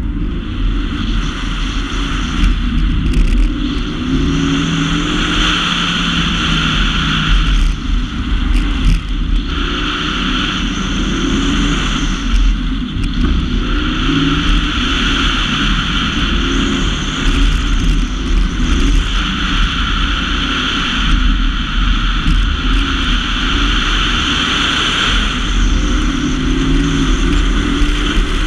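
Car engine revving up and down hard through an autocross run, heard from inside the cabin, with tyres squealing in the corners: a high squeal that swells and fades every few seconds as the car is pushed through the turns.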